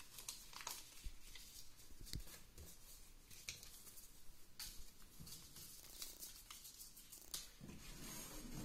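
Paper slips being folded and creased by hand on a wooden table: faint, scattered rustles and light crackles.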